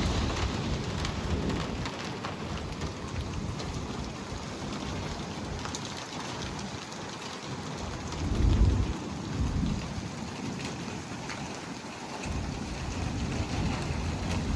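Heavy rain falling steadily, with many close drops ticking against hard surfaces. A low rumble swells briefly about eight and a half seconds in and rises again near the end.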